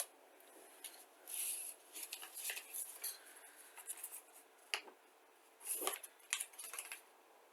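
Plastic model-kit parts and packaging being handled: intermittent crinkly rustles of a plastic bag and paper, with light clicks of plastic sprues, the fuller rustles about a second and a half in and again near six seconds.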